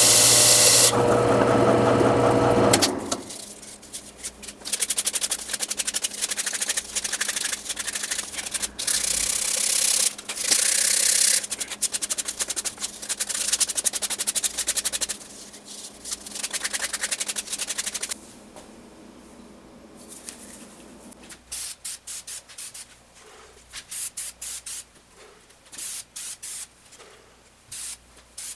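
Disc sander running with the maple cup held against its sanding disc, stopping abruptly about three seconds in. Then scratchy strokes of hand sanding on the wood come in bursts over a faint hum, and a scatter of short clicks follows near the end.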